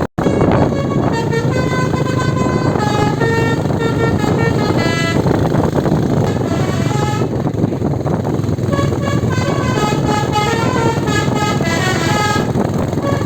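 Bus 'telolet' horn, a set of electrically switched air horns, playing a tune of short stepped notes over the bus's running engine. The tune thins out for about two seconds midway, then carries on.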